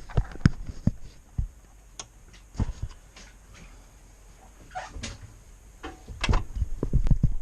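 Irregular knocks and clunks, like handling or door sounds, coming thicker in the last second or so; no engine running.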